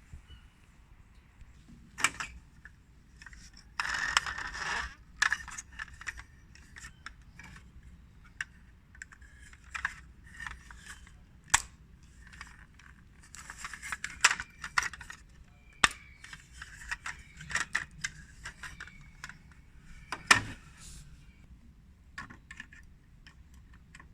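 Toy construction-vehicle parts being handled and fitted together: scattered clicks and light rattles, a short scraping rustle about four seconds in, and a sharp click about twenty seconds in.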